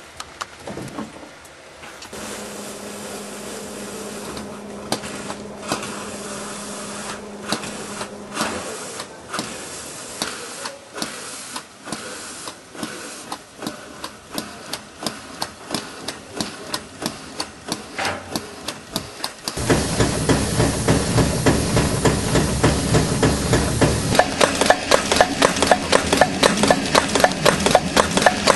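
Small vertical steam pump on a narrow-gauge steam locomotive working, with a rhythmic knocking stroke and steam hiss. The strokes start slow and quicken, then become louder and steadier at about three a second for the last third.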